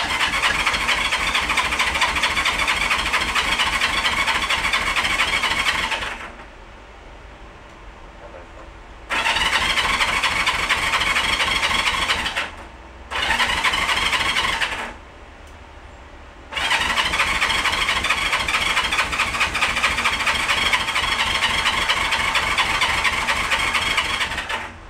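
1971 Honda CB350's electric starter cranking its parallel-twin engine in four attempts of roughly six, three, two and eight seconds, each stopping abruptly, with a little fuel squirted into each cylinder to try for a first start after long storage.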